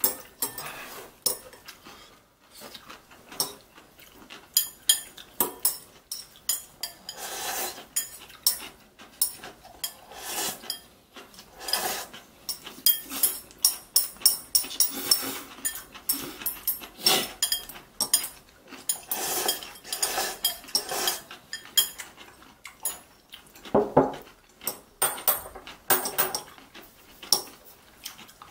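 Metal chopsticks clicking and scraping against a ceramic bowl while picking up noodles, with many short sharp clinks throughout.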